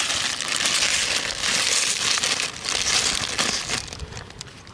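Plastic bag crinkling and rustling as it is handled, a dense crackly rustle that dies away near the end.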